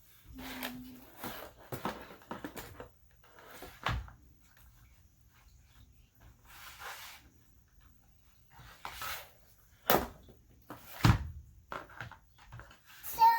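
Scattered rustling and a few sharp knocks, with the loudest knock about eleven seconds in: packaging and foam being handled and moved during an unboxing.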